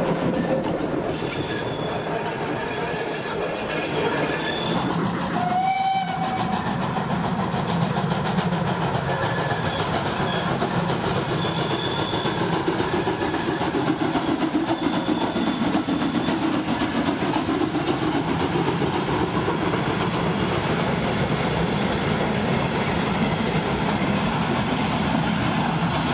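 BR 57 steam locomotive and its passenger coaches running past, wheels clattering steadily over the rails. A short whistle-like tone sounds about six seconds in.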